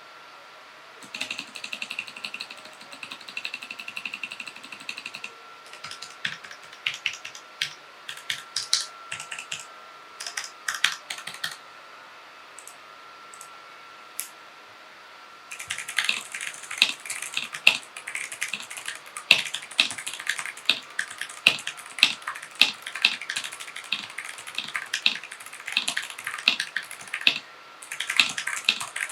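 Mechanical keyboard being typed on: scattered keystrokes at first, then after a pause of a few seconds a fast, continuous run of typing. A faint steady high tone sits underneath.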